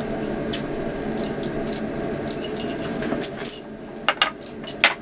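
Small glass clinks and rattles from a Ramune soda bottle, its glass marble knocking inside as the bottle is tipped to drink and set down on the table, over a steady low rushing noise that fades out a little after halfway.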